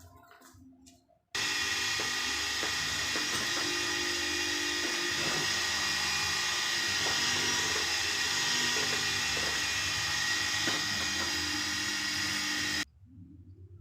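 Electric wood router (profile machine) running steadily at full speed with a high whine. It starts suddenly about a second in and cuts off suddenly near the end, with no wind-up or run-down.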